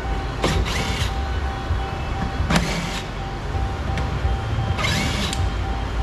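A cordless power driver spinning in a few short whirring bursts as it backs out the door speaker's 5 mm screws, with a sharp click about two and a half seconds in, over a steady low shop hum.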